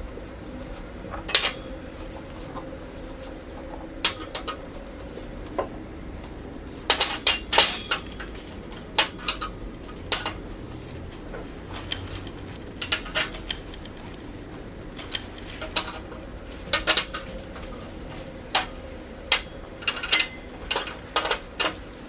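Glassware being set down on a table: wine glasses and tumblers clinking and knocking against the tabletop and each other in irregular taps, some in quick clusters.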